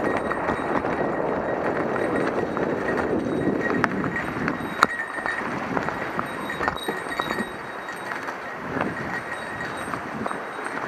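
Mountain bike rolling over a rough trail: steady tyre noise with irregular knocks and rattles from the bike, the sharpest knock near the middle.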